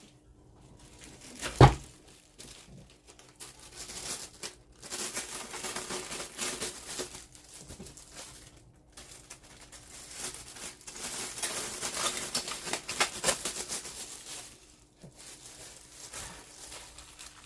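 Thin plastic kitchen gloves crinkling and rustling as they are pulled on and worked over the hands. There is one sharp knock about a second and a half in.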